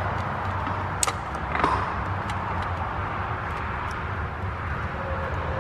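Rubber vacuum hose being handled and pushed onto a plastic tee fitting in an engine bay, with two light clicks about a second and a second and a half in, over a steady shop hum.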